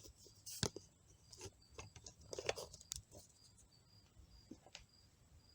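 Scattered light clicks and knocks of transmission parts being handled on the bench. The loudest come about half a second in and around two and a half seconds in. A faint high chirp repeats about twice a second beneath them.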